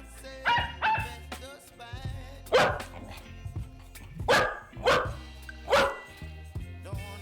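A dog barking in single short barks: two quick, higher-pitched barks near the start, then four louder barks spaced about a second or so apart, over background music.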